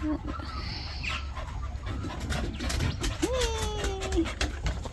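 A dog whining once, a long drawn-out whine about a second long, starting about three seconds in, over a low rumble.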